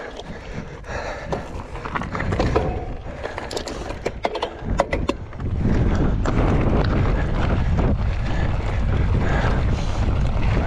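Mountain bike riding down a rough trail, with clicks and rattles from the bike over the ground. About halfway in, loud wind buffeting the microphone takes over as the bike gathers speed.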